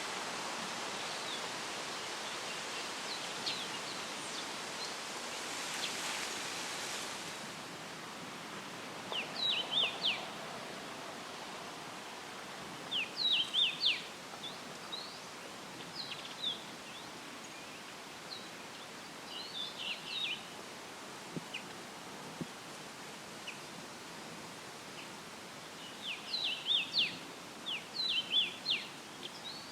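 Leaves rustling steadily in a light breeze, with a gust swelling and easing off about six seconds in. Small songbirds give short clusters of quick, high chirps every few seconds.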